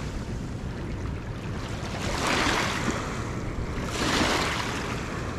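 Small river waves washing onto a gravel shore, rising and falling in swells about every two seconds, over a steady low rumble of wind on the microphone.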